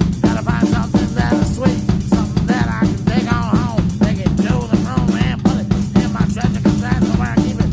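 Background music with a drum kit keeping a steady beat under a melody.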